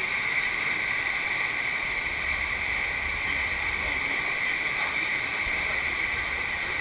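Steady rush of pumped water pouring over a sheet-wave surf machine.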